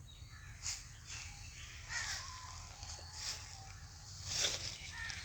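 Faint outdoor ambience with brief bird calls and chirps coming every second or so over a low steady background hum.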